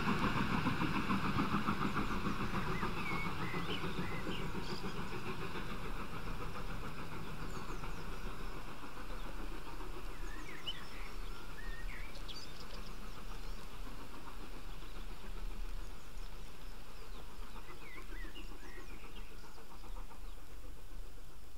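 Deutsche Reichsbahn Pacific steam locomotive No. 01 0523 and its express train drawing away into the distance: the exhaust and train noise fade over the first few seconds into a low, steady rumble. Birds chirp briefly a few times above it.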